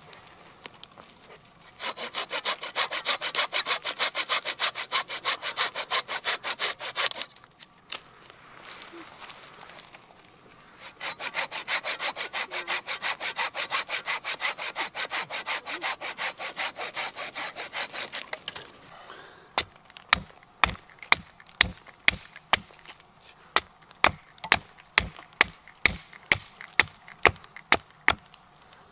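Curved hand pruning saw cutting through a dead branch in two long bouts of quick, even back-and-forth strokes. Then a hatchet chops a point onto a wooden stake held on a stump, sharp knocks about two a second.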